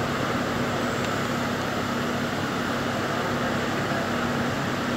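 A machine running steadily: a low hum under an even rushing noise.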